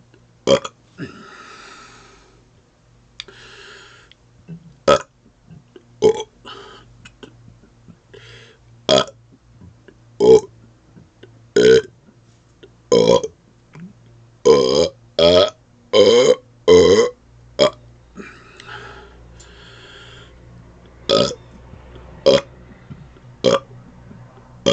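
A man burping over and over without resting, about sixteen short burps in a row, with a quick run of five louder burps in the middle. Breaths of air are heard between some of the burps.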